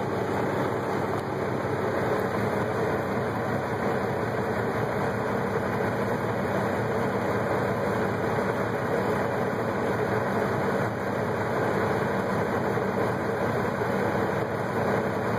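Heavy truck engine running steadily, heard from inside a truck cab.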